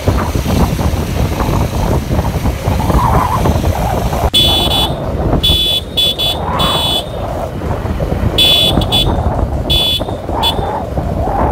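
Motorcycle engine and wind noise throughout. From about four seconds in, a high-pitched vehicle horn sounds in several short honks of varying length.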